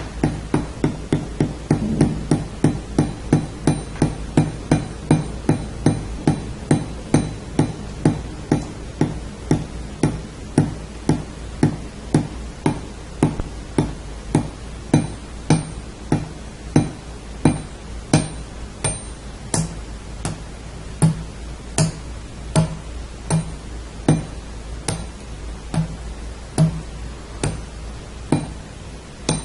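Water dripping onto metal, each drop a sharp tick with a short pitched ring. The drips fall at an even pace, about two a second at first, slowing gradually to roughly one a second.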